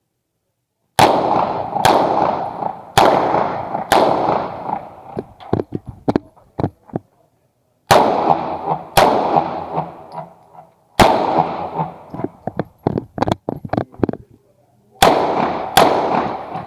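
Uzi Pro 9 mm pistol firing single shots about a second apart, in four strings with pauses of a few seconds between them. Each shot leaves a long echoing tail.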